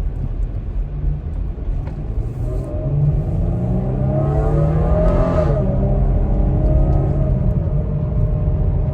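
Car driving, heard from inside the cabin on new tires: a steady low road rumble, with the engine note rising as it accelerates from about two and a half seconds in, then easing off.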